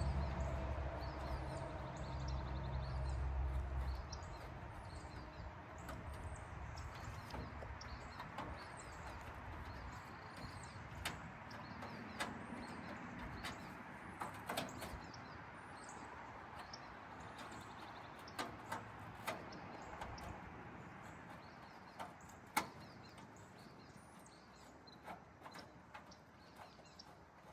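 A low rumble that stops about four seconds in, then scattered sharp metallic clicks and taps of a wrench and small trim parts being fitted to a car's front end.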